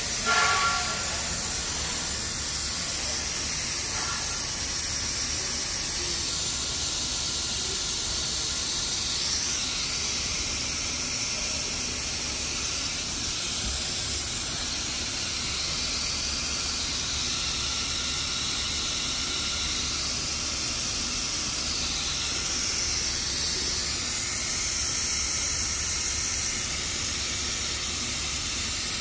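Aerosol foam interior cleaner fizzing on a door panel: a steady, even hiss as the bubbles pop.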